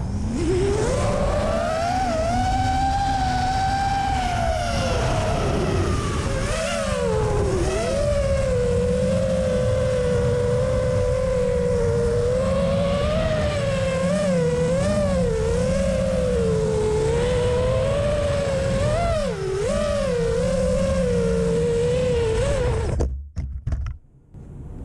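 Racing quadcopter's brushless motors and propellers whining over a low rush of wind, the pitch wavering and dipping and recovering with the throttle. Near the end the whine cuts off abruptly as the quad comes down and its motors stop.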